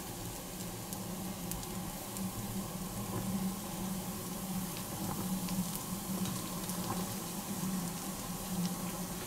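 Popcorn burning around a red-hot metal ball: a steady hiss of flame and scorching with scattered small crackles, over a steady low hum.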